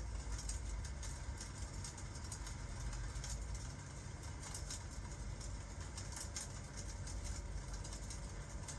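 Crackling fireplace over rain: a steady low rumble with an even hiss, broken by frequent small crackles and pops.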